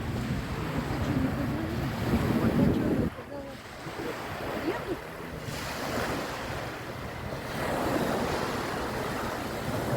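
Sea waves washing onto the shore, their rush swelling and fading, with wind buffeting the microphone, heaviest in the first three seconds.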